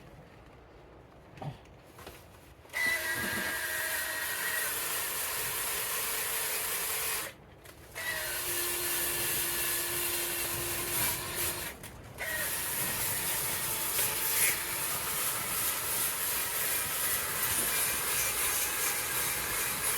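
Power tool spinning a soft nylon-bristle brush against charred cedar, scrubbing away the burnt splinters, with a loud hiss over a steady motor whine. It runs in three stretches, stopping briefly twice.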